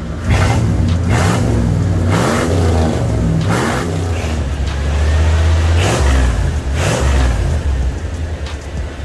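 Chevrolet 305 small-block V8 revved in about six short blips, rising and falling, through a single Flowmaster 40 Series muffler on a Y-pipe. The owner says this barely sounds different from stock and that it needs true dual exhaust to sound like something.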